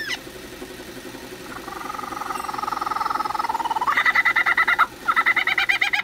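Male lyrebird mimicking a kookaburra's laugh. A fast pulsing chuckle starts about a second and a half in and builds into loud, higher, rapid cackling, with a short break near the end.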